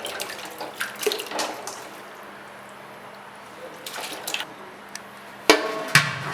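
Pieces of country chicken splashing and dropping into a large pot of hot water, in several quick bursts. Near the end come two loud, ringing metal clanks against the pot.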